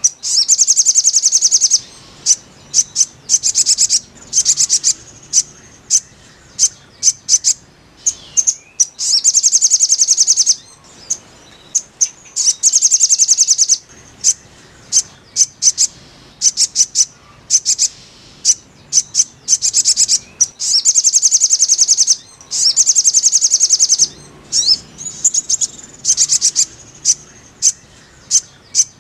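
Sogon bird song: rapid, high trills, each lasting about a second or two, alternating with short, sharp chips and repeating throughout.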